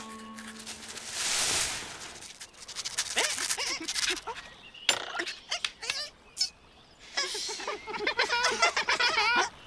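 A rustle of leaves about a second in, then cartoon beavers chattering and giggling, with a few sharp clicks midway and a run of warbling laughter near the end.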